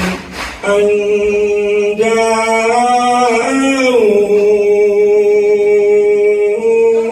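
A man chanting a solo Islamic devotional mawlid song into a microphone, holding long drawn-out notes. He takes a quick breath just after the start, and the melody steps down in pitch about halfway through.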